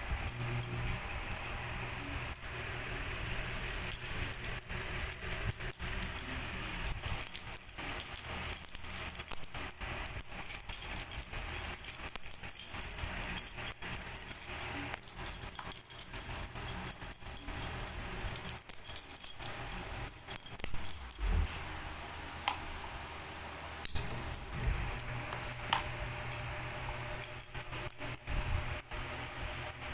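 Background music with jingling, tambourine-like percussion.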